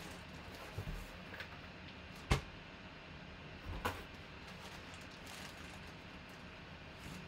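A few short knocks and taps from handling a cardboard box and the drawstring bag lifted out of it, the loudest about two seconds in and another near four seconds, with smaller ones around the first second.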